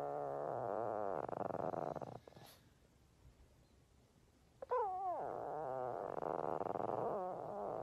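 Pug vocalizing in long drawn-out moans: the first tails off in a low, wavering grumble about two seconds in, and a second starts just before five seconds in, sliding down from high to low and holding a wavering grumble for nearly three seconds.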